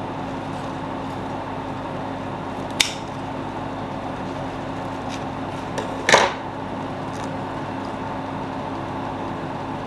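Scissors snipping basil stems from a potted plant: a sharp click about three seconds in and a louder snip about six seconds in, over a steady background hum.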